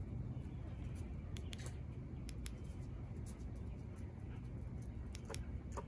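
A few light, sharp clicks as a compact laser sight/flashlight unit is handled and its switch is worked from the white light to the blue laser, over a low steady background rumble.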